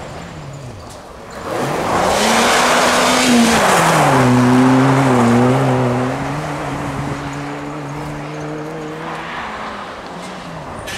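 Rally car engines at race pace on a snow stage. A passing note falls away at the start, then another car comes through hard about a second and a half in, its engine rising sharply under a loud rush of tyres on snow. It then holds a steady pitch before fading near the end.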